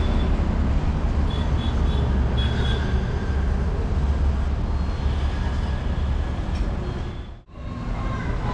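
Steady low rumble of road traffic passing outside, which drops out briefly about seven seconds in.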